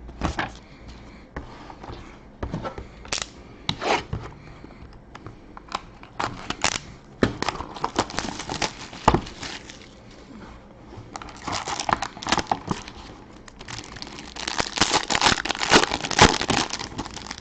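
Plastic wrapping and packaging of a trading card box being torn open and handled: irregular crinkling and crackling with sharp clicks, getting busier and louder in the second half.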